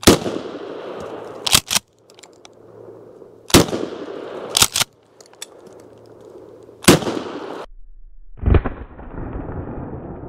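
Mossberg 590 .410-bore pump-action shotgun fired three times, about three and a half seconds apart, each shot followed by two quick clacks of the pump being racked back and forward. After a break, a duller bang comes near the end.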